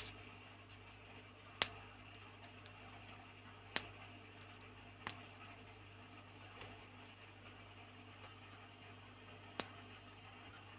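Light modeling clay being handled close to the microphone: a handful of sharp, irregular clicks with fainter ticks and crackles between them, over a steady low hum.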